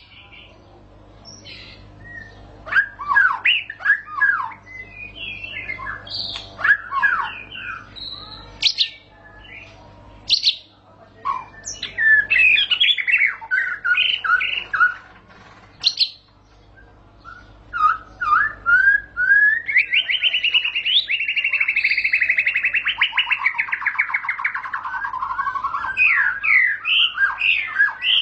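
White-rumped shama (murai batu) singing a long, continuous song of varied whistled notes and phrases. A long fast trill comes about two-thirds of the way through and steps down in pitch.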